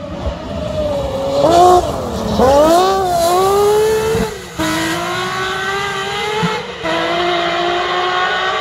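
Historic rally car engine revving hard. The revs drop sharply as it lifts off and turns about two seconds in, then climb again as it accelerates away, with two short breaks in the engine note for upshifts about four and a half and seven seconds in.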